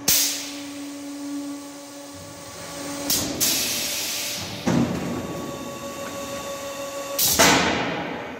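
Automatic silage bagging machine cycling. A steady motor hum runs under four sudden clunks, each followed by a rush of hissing noise that fades over a second or so; the loudest comes near the end, as a filled bag is released.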